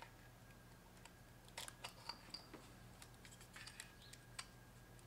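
Faint plastic clicks and scrapes of electrical connectors being unplugged from a Mazda 3's ignition coil packs, the locking tab pressed down and the plug pulled out; a few scattered clicks in two small clusters, over a faint steady hum.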